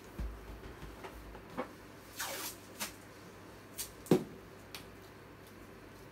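Handling noises as a balloon is picked up and worked by hand: scattered clicks and rustles, a short rustle about two seconds in, and a single knock a little after four seconds, the loudest sound.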